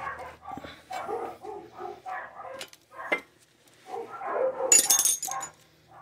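A dog barking and whining in short repeated calls, with a sharp metallic clink about five seconds in.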